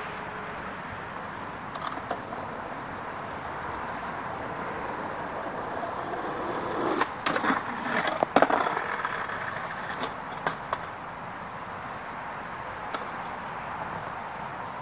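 Skateboard wheels rolling on asphalt, growing louder as the board comes near. About seven to eight and a half seconds in there are several sharp clacks of the board hitting the ground, the loudest near the end of that run, and then the rolling dies down.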